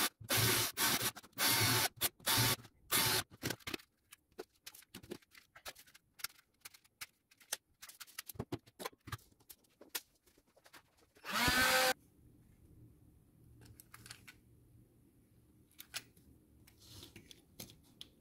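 Cordless drill whirring in short pulses, about two a second, as it drills out the rivets of a plastic relay housing, then light clicks and rattles of the plastic parts being handled. A little past halfway, one more short whir of the drill, sinking in pitch as it spins down.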